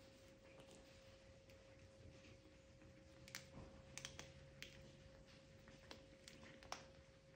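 Faint scattered clicks and crunches of a cat chewing a red snapper tail, mostly in the second half, over a faint steady tone.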